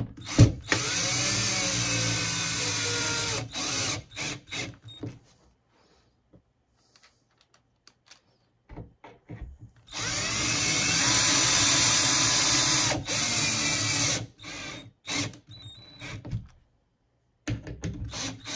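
Cordless drill driving screws through a plastic thermostat base plate into drywall anchors. There are two steady runs of about three to four seconds each, each followed by a few short trigger taps as the screw seats, with a quiet gap between them.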